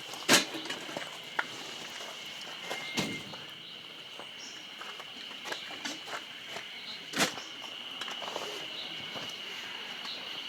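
Steady high-pitched insect drone, with scattered clicks and knocks over it. The two loudest knocks come just after the start and about seven seconds in.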